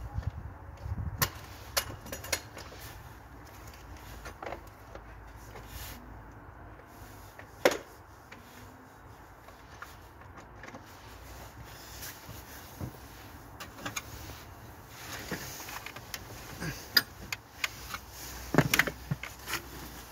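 Scattered, irregular metallic clinks and knocks of tools and parts being handled during car repair work. One sharp knock comes about eight seconds in and a cluster near the end, over a faint low rumble.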